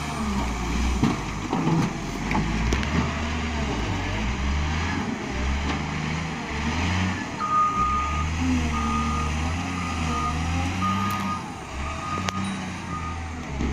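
Wheel loader's diesel engine running steadily as it carries a heavy log. From about halfway in, its reversing alarm beeps about six times at an even pace as it backs up.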